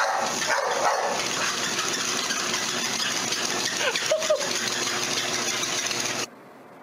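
Treadmill running with a steady noise under a dog walking on its belt; the dog gives a few short whines, once near the start and twice about four seconds in. The sound cuts off abruptly near the end.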